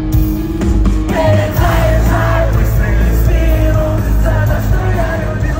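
Live rock band playing over a loud arena sound system, electric guitar and heavy bass, with a voice coming in about a second in and singing a melody of long held notes.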